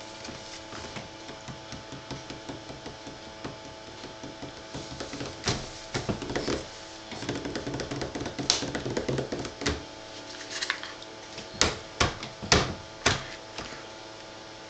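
Irregular taps and knocks over a steady faint hum. They thicken into a busy rattling patch about halfway through, then a few loud sharp bangs follow close together near the end.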